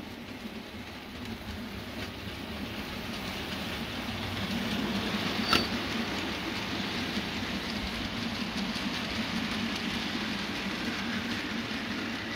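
Bachmann OO gauge model GWR Hall class locomotive and goods wagons running along the track: a steady rumble of wheels on rail that grows louder as the train passes, with one sharp click about halfway through.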